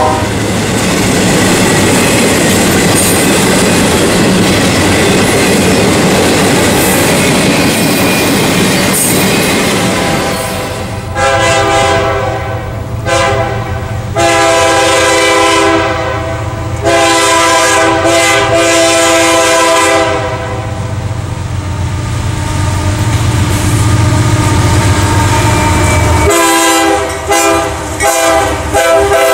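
Freight train wheels rolling and clattering on the rails as the tail of a double-stack intermodal train passes. Then a CSX diesel locomotive's air horn sounds four blasts in a row, followed by the low rumble of the locomotives approaching and several short horn blasts near the end.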